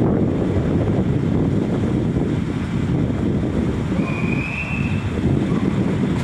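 Wind buffeting the microphone in uneven gusts, a loud low rumbling noise. A short, steady high-pitched tone sounds for about a second near the four-second mark.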